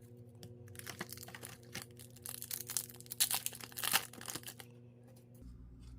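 Foil trading-card pack wrapper crinkling and tearing as a pack is opened, a run of crackles lasting a few seconds.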